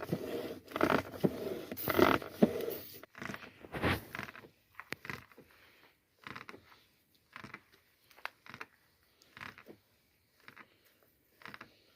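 A hand pump worked in repeated strokes. The strokes are loud and quick, about two a second, for the first four seconds, then fainter and slower, about one a second.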